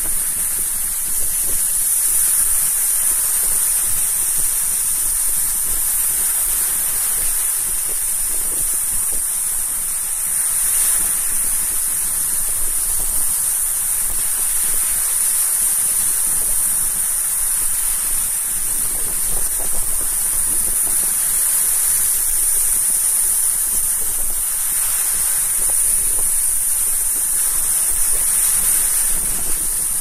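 Sea surf: small waves breaking and washing up the shore in a steady rushing noise, with a constant high hiss over it.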